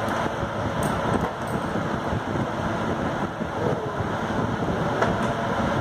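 Steady rushing noise, like air moving over the microphone, with a few faint light taps.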